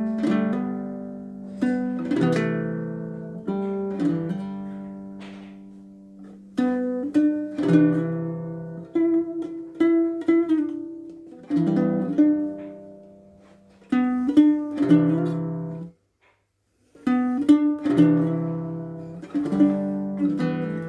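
Bruko baritone ukulele strung with Perry's low-octave GCEA strings, playing a slow tune in struck chords that ring and fade, with a short pause about 16 seconds in. The tone is deep and low in register, with none of a ukulele's usual bright, perky sound.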